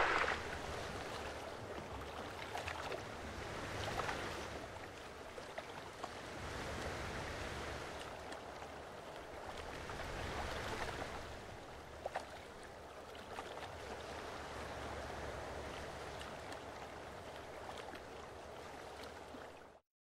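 Open sea heard from right at the water surface: small waves lapping and sloshing, swelling and fading every few seconds, with a few small splashes. It cuts off abruptly shortly before the end.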